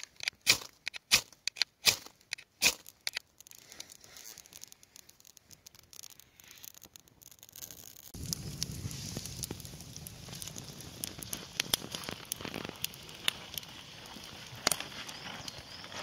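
Ferro rod scraped hard with the spine of a knife, six or so sharp rasping strikes in quick succession throwing sparks onto a tinder bundle, then a few lighter scrapes. From about eight seconds, a steady rushing noise with light crackles around the smouldering tinder bundle.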